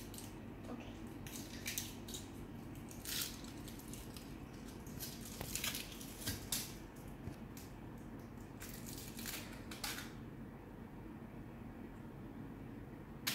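Foil wrapper of a Kinder Surprise chocolate egg crinkling in short, irregular bursts as it is peeled off and the egg opened by hand. The rustling stops about ten seconds in.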